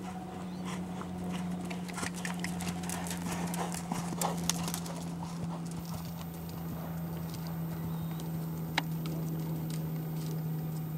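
Belgian Warmblood gelding's hooves striking the sand arena footing as it is ridden, a cluster of sharp strikes about two to five seconds in and another near nine seconds, over a steady low hum.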